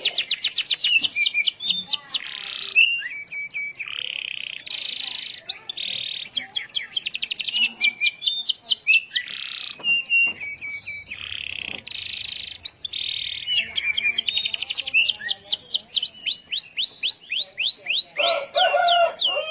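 Domestic canary in full, fast song: rapid trills of steeply falling notes alternate with dense buzzy rolls, with hardly a break. Near the end some fuller, lower notes join in.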